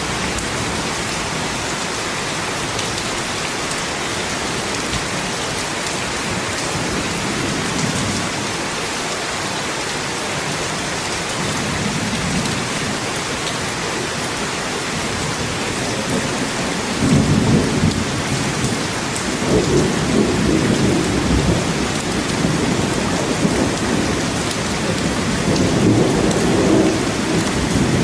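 Steady rain falling in a forest. About two-thirds of the way through, a low rumble comes in and swells several times.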